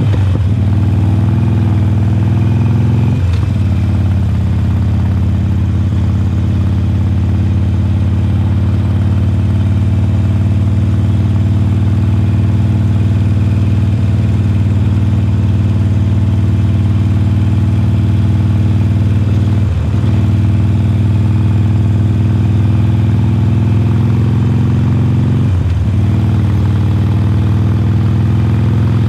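2020 Harley-Davidson Forty-Eight's air-cooled 1200 cc V-twin, breathing through Khrome Werks slip-on mufflers, running under way at a steady cruise. The exhaust note holds steady, with brief dips where it drops and picks up again a few seconds in, about twenty seconds in and near the end.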